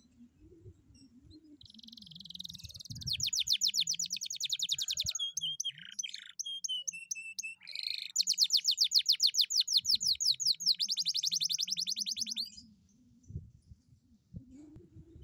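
Domestic canary singing: a buzzy note leads into a long rapid trill, then a few short whistled notes, then a second long rapid trill that stops a few seconds before the end.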